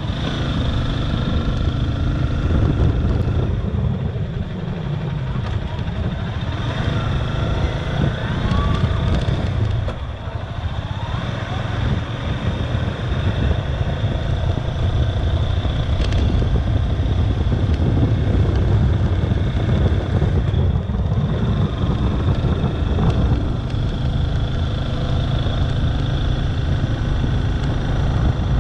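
Vehicle on the move: a steady low engine and road rumble.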